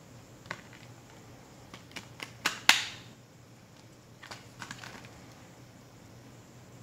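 Clicks and snaps from a clear plastic Blu-ray case as its hinged inner disc tray is handled and flipped over. The clicks come irregularly, with a quick run ending in the loudest snap about two and a half seconds in, and a few more between four and five seconds.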